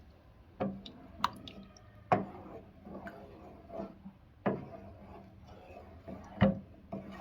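A spoon stirring milk in a pot on the stove, knocking against the pot in sharp, irregular taps, about one every second.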